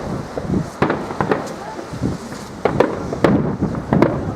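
Firework display: an irregular series of sharp bangs from exploding aerial fireworks, several in quick succession at times, each with a short echoing tail.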